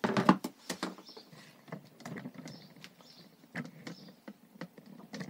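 Handling noise: a string of light knocks, clicks and rustles as equipment is moved about, loudest in a cluster right at the start.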